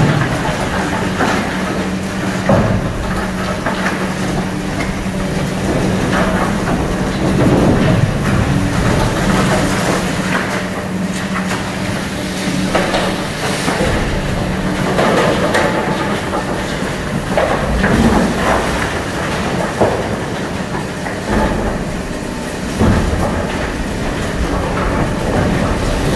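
Hydraulic excavator running steadily while its crusher jaws chew through reinforced concrete, with irregular crunching and cracking of concrete and clatter of falling rubble.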